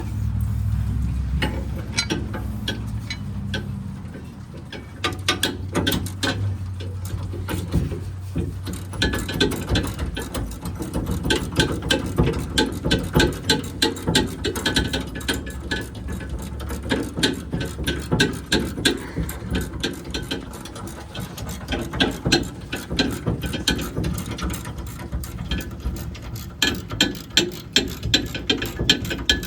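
Hand socket ratchet clicking in rapid runs as bolts on a gooseneck hitch plate are run in snug under a truck. A steady low hum sits underneath for the first several seconds.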